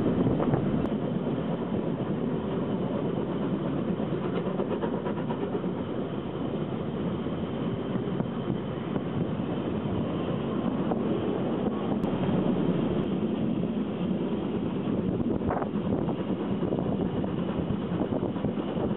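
Narrow-gauge steam train running, heard from one of its carriages: a steady rumble and rattle of the wheels and coaches on the track.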